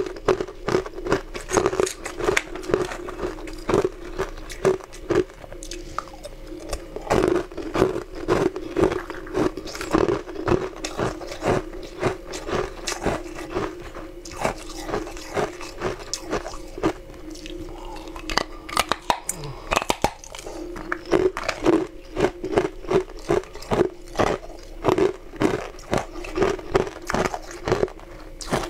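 Chunks of ice being bitten and crunched between the teeth: a dense run of sharp, irregular crunches, thinning briefly about two-thirds of the way through.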